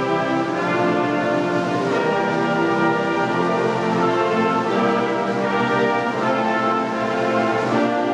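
A wind ensemble plays a concert piece in which the trumpets and the other brass carry loud, sustained chords that change every few seconds.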